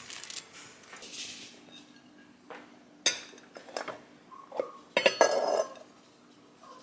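Utensils and dishes clinking and knocking together as food is plated, with a few sharp knocks from about three seconds in and the loudest cluster about five seconds in.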